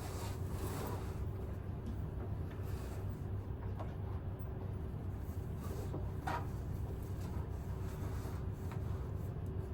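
Seat-belt straps and buckle being handled as they are fastened, soft rubbing with a few light clicks, over a steady low hum.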